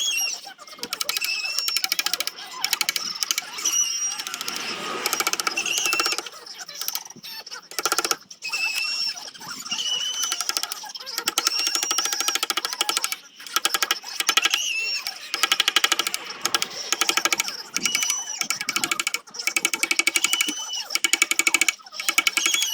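Power sander working a zelkova root during rough sanding: a fast chattering buzz with a whine that rises and falls as the tool is loaded. It stops and restarts briefly several times.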